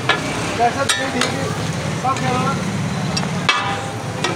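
Metal spatula scraping and tapping across a large flat tawa as chicken pieces in gravy sizzle on it, with a few sharp clinks of the spatula against the pan.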